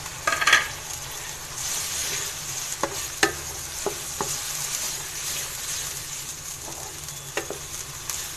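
Onions and freshly added chopped tomatoes frying in hot oil, a steady sizzle with a louder burst right at the start. A wooden spatula stirs through them, knocking against the pan a few times.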